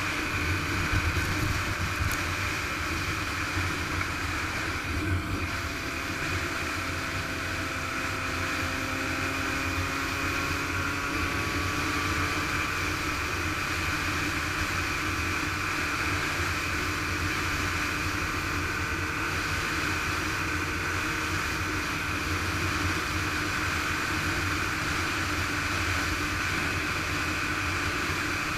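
Yamaha YZ125 two-stroke single-cylinder motocross engine running steadily, with its pitch sliding slowly up and down a few seconds in, under a constant hiss.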